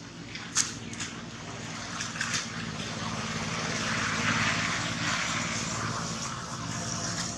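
A distant motor engine droning steadily, growing louder to a peak about four seconds in and then fading a little, as a vehicle or plane passing by does. Two sharp clicks come in the first second.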